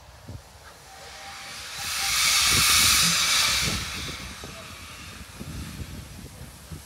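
GWR 5600 Class 0-6-2 tank locomotive No. 6695 letting off steam: a loud hiss swells up about two seconds in and dies away over the next couple of seconds, with low thuds underneath.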